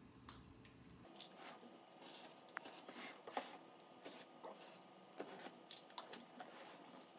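A small blade slicing through packing tape along the top seam of a cardboard box, with irregular scratches, ticks and taps of hands on the cardboard; the loudest tap comes about three-quarters of the way through.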